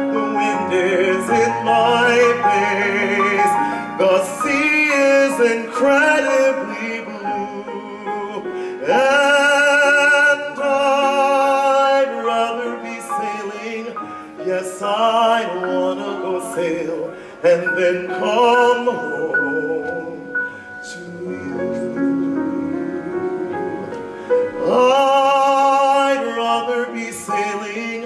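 A man singing a show-tune ballad with vibrato, accompanied on grand piano. He holds long notes about nine seconds in and again near the end.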